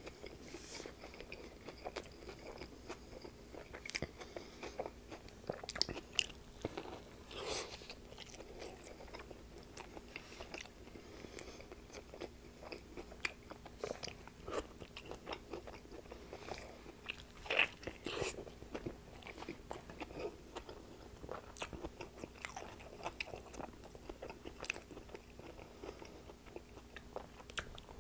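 Close-up eating sounds of a person biting into and chewing a sub sandwich: wet chewing with irregular crunches and crackles, a few louder ones scattered through.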